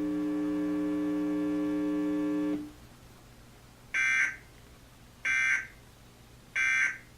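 A steady buzzing tone cuts off about two and a half seconds in. It is followed by three short, warbling data bursts about 1.3 seconds apart: the Emergency Alert System end-of-message (EOM) code that closes the alert.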